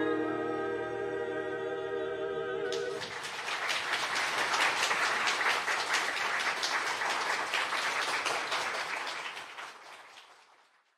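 A choir holds the last chord of a song, which stops about three seconds in. An audience then applauds, and the applause fades out near the end.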